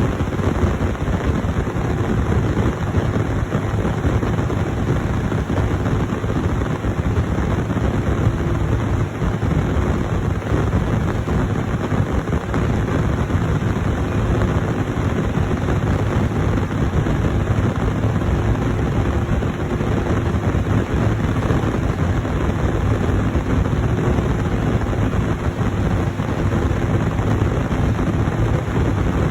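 Heavy corn-harvest machinery running steadily: a constant loud drone with a steady hum held through it.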